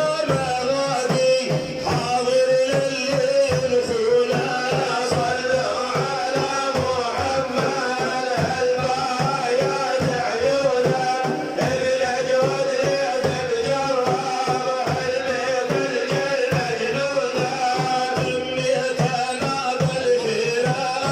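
Sufi devotional chanting: a male voice sings a melismatic praise poem for the Prophet Muhammad, over a steady rhythm of hand-drum beats.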